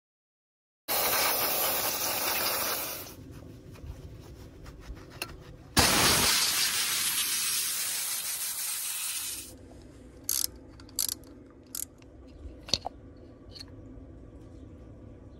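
Two long stretches of loud hissing, then several short sharp clicks as the plastic electrical connectors are unclipped and the ignition coil packs are worked loose from a four-cylinder Ecotec turbo engine's cam cover.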